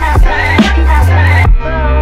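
Background music with heavy electronic bass and a steady beat.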